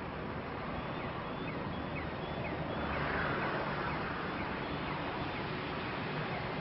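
Distant jet airliner's engines during its takeoff roll: a steady broad rush that swells a little around the middle. A run of short, high chirps about twice a second sits over it for the first few seconds.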